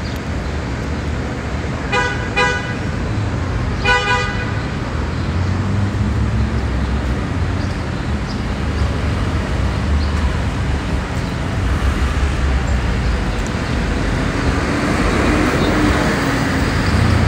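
Street traffic running steadily, with a vehicle horn honking two short toots about two seconds in and a longer toot about four seconds in. The traffic noise swells again near the end.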